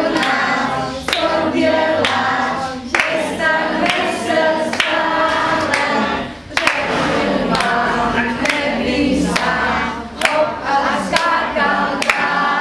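A group of young children singing a song together, with sharp clicks now and then.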